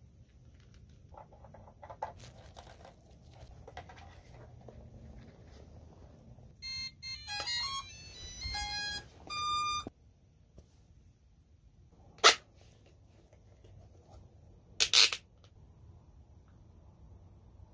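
Electronic start-up tune of beeps stepping in pitch for about three seconds, from the FIFISH V6 underwater drone's remote controller as it is switched on. Quiet handling rustle around it, and two short sharp noises later on.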